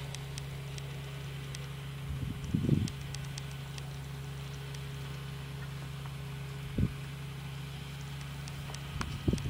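Case IH Puma 210 tractor's six-cylinder diesel engine running steadily at a distance as it pulls a slurry tanker spreading digestate. A few low thumps break in, about three seconds apart.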